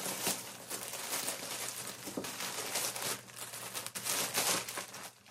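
Grey plastic mailer bag crinkling and rustling as it is pulled open by hand, an irregular run of crackles.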